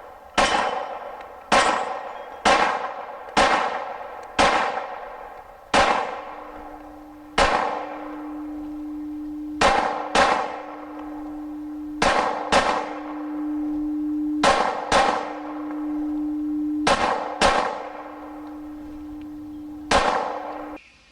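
A string of 9mm pistol shots from a Glock 26 hitting steel plates, roughly a second apart, each hit ringing out and dying away. A steady low hum runs under the second half.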